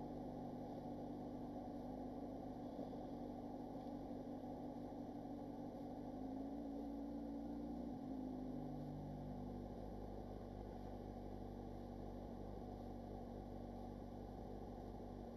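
Car engine idling, a steady low hum heard from inside the cabin, with a slight shift in pitch about six to eight seconds in.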